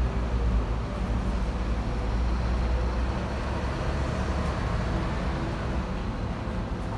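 Steady low rumble of city road traffic, with vehicle engines running nearby.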